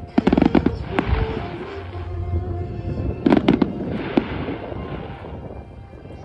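Aerial firework shells bursting in two quick volleys of sharp bangs, one just after the start and another about three seconds in.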